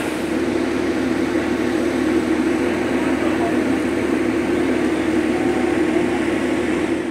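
Narrow-gauge diesel toy-train locomotive idling: a steady engine hum.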